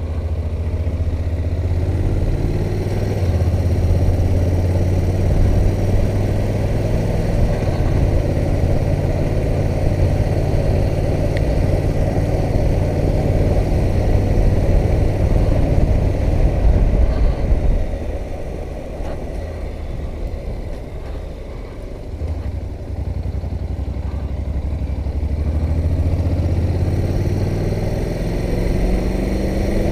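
Honda NC700X motorcycle's 670 cc parallel-twin engine under way. It accelerates with rising pitch at the start, runs steadily, eases off around eighteen seconds in, and climbs in pitch again near the end.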